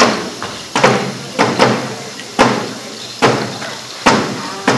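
Wooden barrel drums beaten with sticks in a slow, uneven beat, about eight strikes, some in close pairs, each hit ringing out and dying away before the next.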